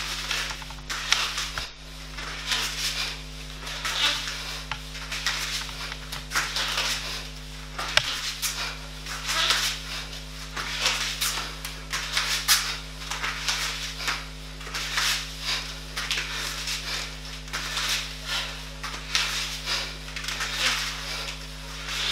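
Rhythmic scuffing and brushing of feet and hands on a foam floor mat during a plank-position workout exercise, with a steady low electrical hum underneath.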